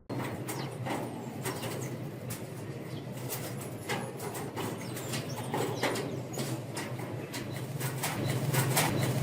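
Small birds and doves feeding on seed: an irregular run of sharp taps and flutters, with a few faint high chirps over a steady low hum.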